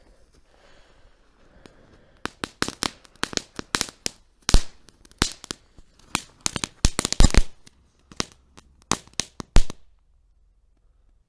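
Lesli crackling-snake novelty firework going off: after about two seconds it starts a rapid, irregular run of sharp crackling pops, some much louder than others. The run stops abruptly near the end.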